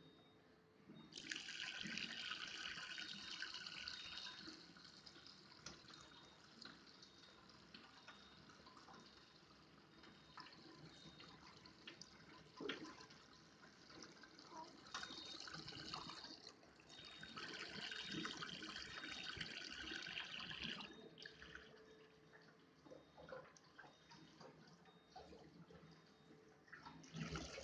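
Thin stream of water from a water ionizer's outlet falling and splashing into a plastic funnel. It is louder for a few seconds near the start and again for several seconds past the middle, and softer in between.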